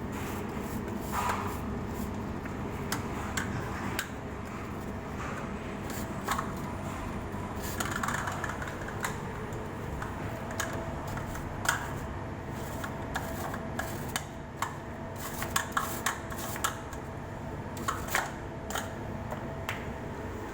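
Irregular light clicks and knocks, several in quick runs in the second half, over a steady low hum.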